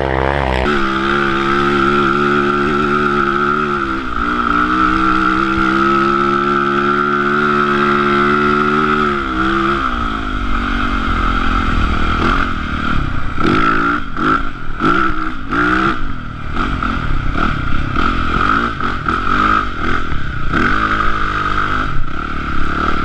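Yamaha YZ450F dirt bike's four-stroke single-cylinder engine, heard from the handlebars. For about ten seconds it holds fairly steady high revs, then it revs up and down again and again with knocks from the bike. A steady high whine sits over it from just after the start.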